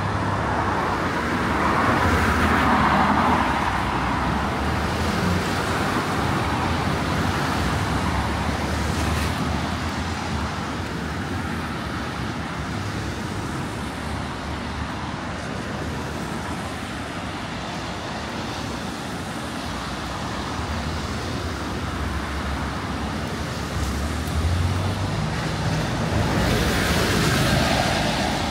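Road traffic on a wet city street: cars passing with tyre hiss over a steady low engine rumble, swelling about two to four seconds in and again near the end.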